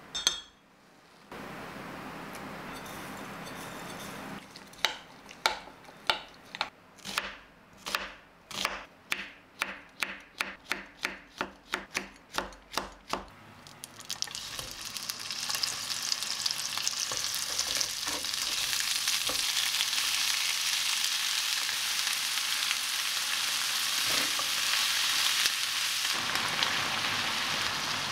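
A spoon stirring sauce in a glass measuring jug, clinking against the glass in a quickening rhythm; then, about halfway through, onion frying in oil in a frying pan, a steady sizzle that grows louder and holds.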